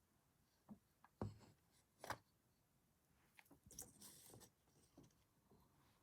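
Faint handling sounds of small pieces on a tabletop: a few light taps and clicks, with a brief rustle in the middle.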